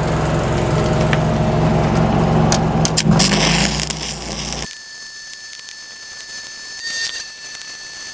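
Gasless flux-core wire-welding arc crackling steadily over a low machine hum for about four and a half seconds, then cutting off abruptly; a quieter steady high whine follows.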